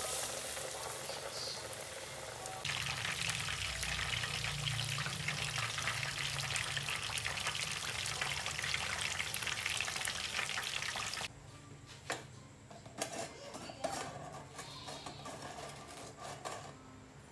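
Battered chicken pieces frying in a pan of hot oil: a dense sizzling and crackling that grows louder about three seconds in. It stops suddenly after about eleven seconds, leaving only faint scattered clicks.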